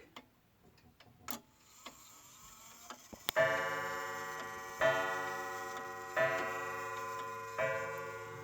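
Circa-1978 Howard Miller 612-485 wall clock striking the hour on its coiled gong, counting out 10 o'clock. A few faint clicks come from the movement, then the first strike lands about three seconds in and three more follow about every second and a half. Each strike rings on with a long fading tone.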